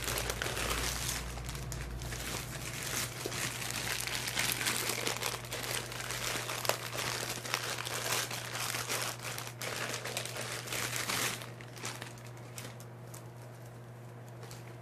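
Packaging being opened by hand: crinkling and rustling with many sharp crackles, stopping about eleven seconds in, over a steady low hum.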